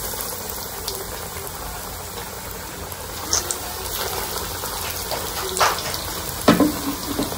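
Breadcrumb-coated bread rolls deep-frying in hot oil in a kadai: a steady hiss of vigorously bubbling oil with a few sharper crackles.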